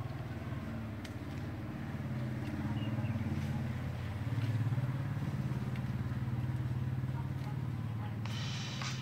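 A motor engine running steadily, a low droning hum that swells slightly about halfway through.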